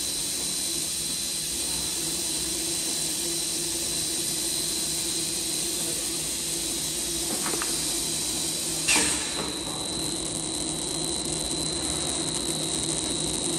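Extrusion blow molding machine with six die heads running: a steady mechanical hum and hiss with a constant high whine. A single sharp clack cuts through about nine seconds in.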